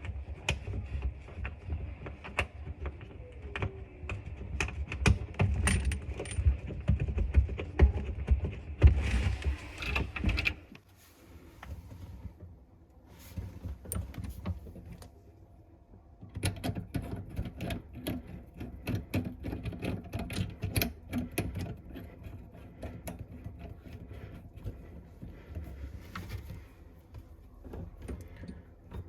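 Small metal parts and tools clicking and clinking as they are handled during a washbasin faucet replacement, with a low rumble for the first ten seconds and a quieter lull partway through.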